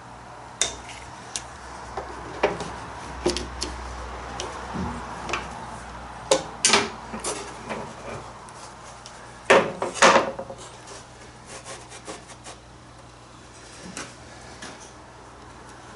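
Plywood panel and mahogany framing strips being handled and clamped with bar clamps on a workbench: scattered wooden knocks, clatter and rubbing, with the loudest cluster of knocks about ten seconds in.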